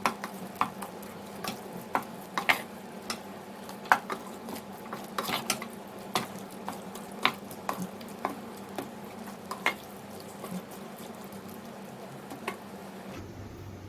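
Spoon stirring fried chicken pieces into a thick tomato-and-coriander masala in a pan over a steady low sizzle, with irregular clinks and scrapes of the spoon against the pan.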